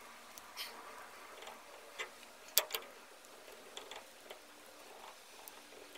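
Faint scattered clicks and light taps of hands pressing a paper gasket onto the metal hub flange of a rear axle, with a sharp double click about two and a half seconds in.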